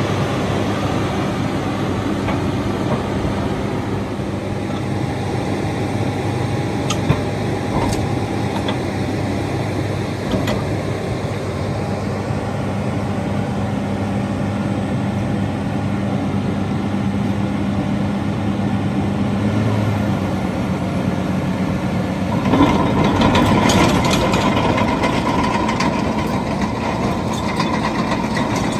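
Cat D6N LGP crawler dozer's diesel engine idling steadily. About three-quarters of the way through, the engine speeds up and the dozer drives off, with a rough clatter added to the engine sound.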